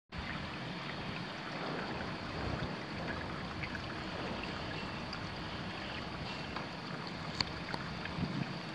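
Steady rush of water in an outdoor holding tank, with a few faint ticks.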